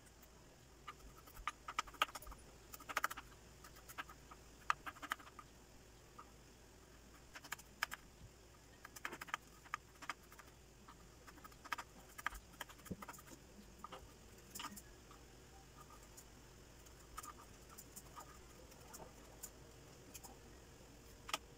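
Kitchen knife mincing garlic cloves on a cutting board: faint, irregular taps of the blade on the board in quick runs, thinning out over the last few seconds.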